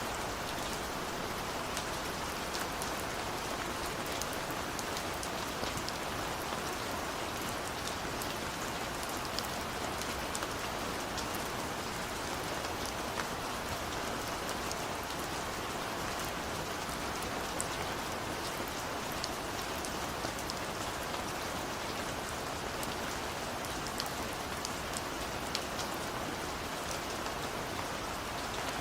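Steady rain falling on a window, an even hiss with many small sharp drop ticks scattered through it.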